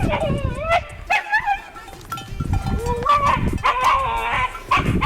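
Shiba Inu dog vocalising: a series of about five short calls that bend up and down in pitch, with brief gaps between them.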